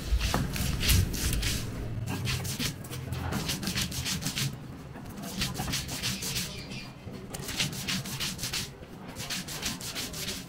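Stone roller rubbed back and forth on a flat stone grinding slab (shil-pata), grinding jackfruit flower, chillies and herbs into a bhorta paste: rasping strokes a few a second, in runs with short pauses between them.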